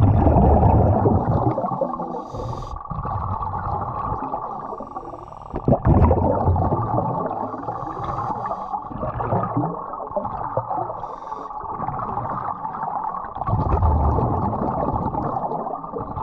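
Scuba diver breathing underwater through a regulator: exhaled breaths rumble out as bubbles, alternating with the hiss of inhalations drawn through the second stage, over several slow breaths. A steady hum runs underneath.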